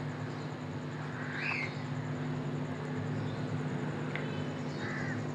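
Quiet, steady low hum of room background, with a few faint, brief higher-pitched sounds.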